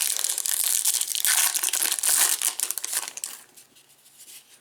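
Wrapper of a Topps baseball card pack crinkling loudly as it is torn open and pulled off by hand, for about three seconds before it fades.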